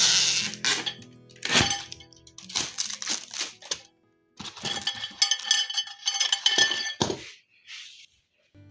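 Clatter, knocks and ringing clinks of hard microwave accessories, such as the glass plate and grill rack, being handled and unpacked. A dense cluster of clinks comes in the second half, over background music that drops out about halfway.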